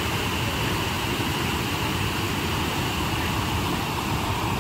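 Water rushing steadily over the steps of a concrete weir, a strong flow that is put down to recent rain.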